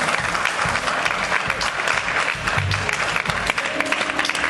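Congregation applauding, a dense patter of many hands clapping, with a few low held musical notes sounding underneath in the second half.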